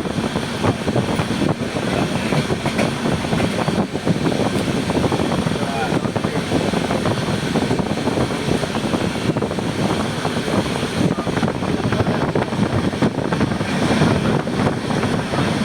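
Passenger train running at steady speed: a continuous rumble of wheels on rails and rattling carriage, heard from aboard.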